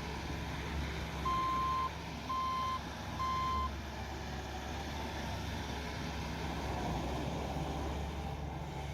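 A 2018 Bobcat S650 skid steer loader's 2.4-litre four-cylinder turbo diesel runs steadily. Starting about a second in, its backup alarm beeps three times, the sign that the loader is reversing.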